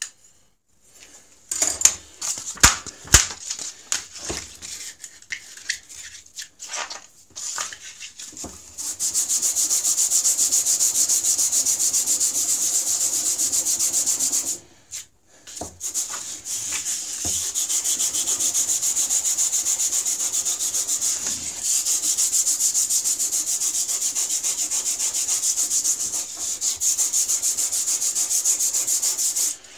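A waterstone rubbed rapidly back and forth on sandpaper to flatten it, a steady gritty rasp. This lapping is how a stone that has worn out of flat is trued. The rasp starts about nine seconds in, after a few knocks and clatters, and breaks off briefly about halfway.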